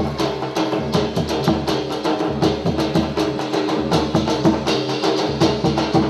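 Gujarati folk dance music: a fast, even rhythm of sharp clicks and drum beats over a sustained melody.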